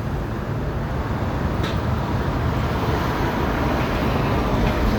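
Street traffic on a city avenue: a steady vehicle rumble that grows slightly louder as traffic passes.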